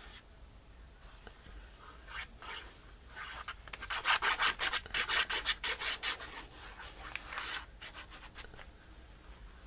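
Plastic tip of a squeeze glue bottle rubbing and scraping along the edge of a paper tag as glue is laid down: a run of quick scratchy strokes that starts about two seconds in, is loudest in the middle and dies away before the end.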